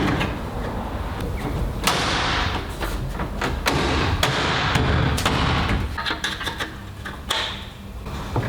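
A run of knocks and thumps from hands-on work on the car's bodywork and trim, with rustling and handling noise in between.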